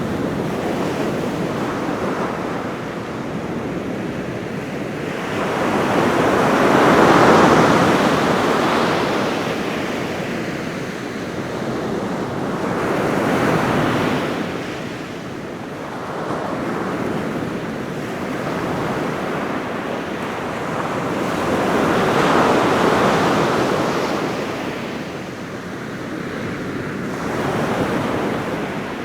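Ocean surf breaking on a beach, a continuous wash that swells with each wave, the biggest about a quarter of the way in and again a little after two thirds. Light wind noise on the microphone runs under it.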